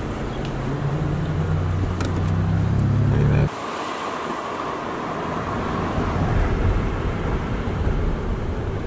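Car engine hum inside a moving car, rising slightly in pitch as it speeds up. About three and a half seconds in it cuts off suddenly, replaced by a steady rushing of road and wind noise.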